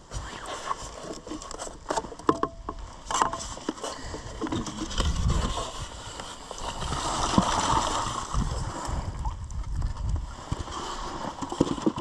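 Knocks and scrapes of a minnow bucket being handled in a boat, then a couple of seconds of water pouring out, about seven seconds in, as the minnows are dumped.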